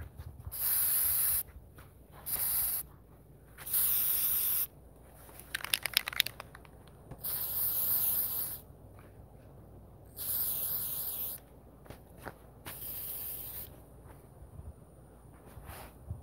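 Aerosol can of cold galvanizing spray paint spraying in short hissing bursts, each about a second long, about six of them with gaps of a second or two. There is a short rattle about six seconds in.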